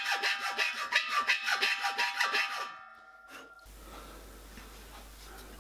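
Hand file rasping in quick, evenly spaced strokes across the cut-off stud stubs on a silver-soldered copper boiler plate, stopping just under three seconds in. A faint, steady low hum follows.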